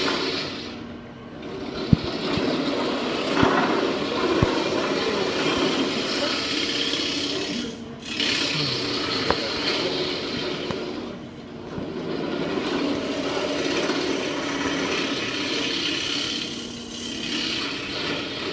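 Wood lathe running while a round-nose tool cuts the inside of a spinning wooden piece, a steady rough cutting noise that eases off briefly about four times as the tool comes away from the wood. A few sharp clicks sound in the first few seconds.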